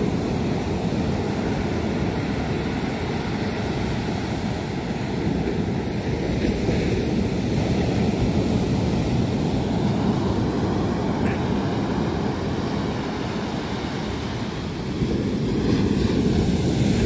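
Surf breaking and washing up a sandy beach, a steady low rush mixed with wind buffeting the microphone, growing louder about fifteen seconds in.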